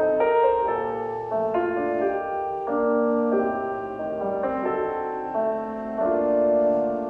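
Music from a Sony SRS-XB41 Bluetooth speaker: a soft piano passage of held notes that change every half second or so, with no drums.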